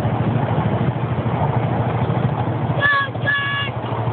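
Miniature ride-on park train running with a steady low rumble of its engine and wheels. About three seconds in, a horn gives two short toots.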